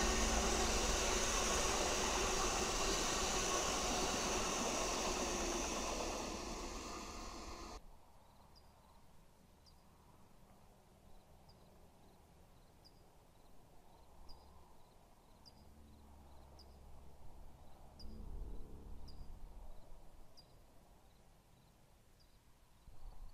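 Amtrak passenger train rolling past close by, a loud steady rush of wheels on rail that slowly fades as it pulls away, then cuts off abruptly. After that it is quiet outdoor air, with a faint short chirp repeating about once a second and a soft low rumble that swells for a couple of seconds near the end.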